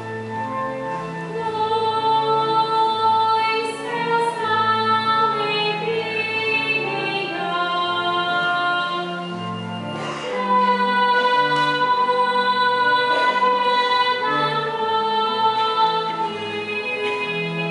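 Slow devotional hymn sung with a held accompaniment, its bass line stepping from note to note.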